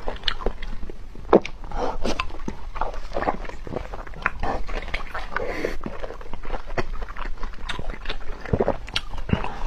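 Close-miked eating: biting and chewing food, a quick irregular run of mouth clicks and small crunches.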